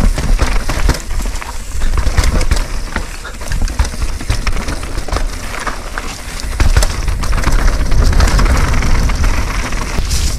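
Mountain bike riding down a rough technical trail: heavy wind rumble on the rider's camera microphone, tyre noise on dirt and rock, and frequent sharp knocks and rattles from the bike over the rough ground.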